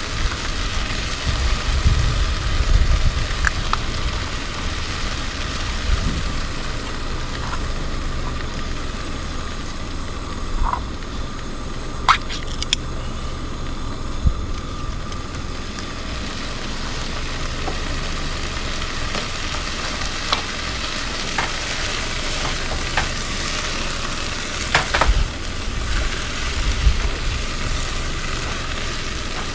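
Food sizzling in a pot over a camp stove with a steady hiss, and a few sharp clinks of a utensil against the pot.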